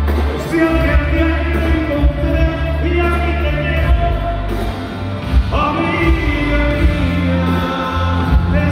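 Live band music with a singer, played loud over an arena's sound system, with a strong steady bass.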